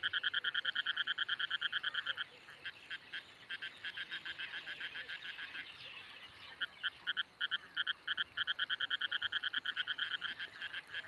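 An animal calling in a rapid pulsing trill, about ten pulses a second, in long runs broken by short pauses.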